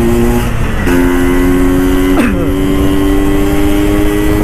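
Single-cylinder two-stroke engine of a 1981 Vespa PX with a new MHR under-slung expansion exhaust under hard acceleration. The engine note drops out briefly about half a second in as the rider shifts into third gear, then it pulls on with its pitch slowly rising.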